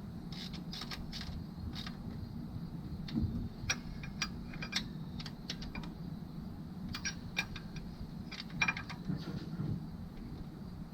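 Hand ratchet and socket working bolts on a car engine: irregular clusters of sharp metallic clicks and clinks over a steady low hum.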